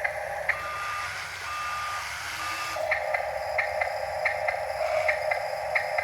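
Reverse-warning beeper of a radio-controlled construction model sounding three steady half-second beeps about a second apart. From about three seconds in, the model's small electric drive takes over, a steady whirr with a regular paired ticking.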